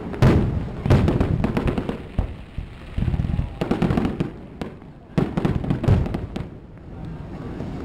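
Aerial firework shells bursting one after another, about half a dozen bangs in a few seconds, each trailing off in a rumbling echo.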